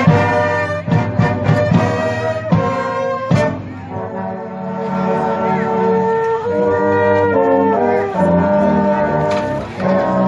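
Marching band playing: the brass section holds sustained chords over a low bass line, with sharp drum and cymbal hits in the first few seconds.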